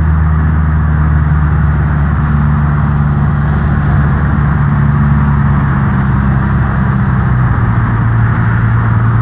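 Cessna 172N's four-cylinder Lycoming engine and propeller droning steadily in flight, with air noise over the airframe; the engine's pitch drops slightly about three quarters of the way through.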